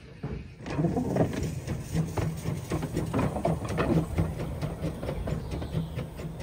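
Narrow-gauge Hunslet saddle-tank steam locomotive running slowly over the track: a busy, uneven clatter of clicks and clanks from its motion and wheels over a low steady rumble, starting about a second in.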